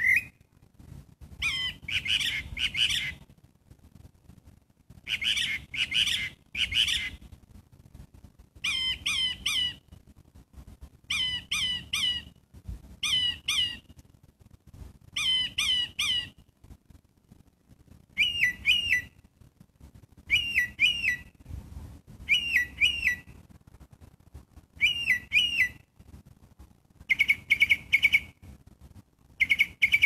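A songbird singing in short bursts of three or four quick, high, identical notes, one burst about every two seconds; the kind of note changes a few times along the way.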